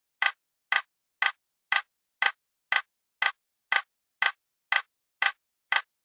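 Steady ticking: even, sharp ticks about two a second, with silence between them.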